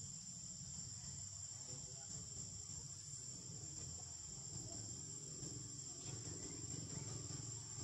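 Steady high-pitched drone of insects in the trees, over a low rumble.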